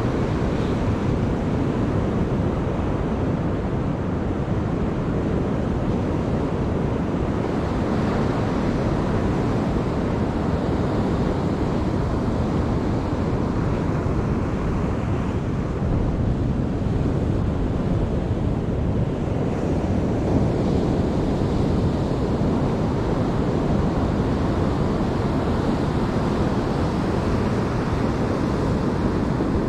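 Ocean surf breaking and washing up a sandy beach as a steady wash of noise, with wind buffeting the microphone.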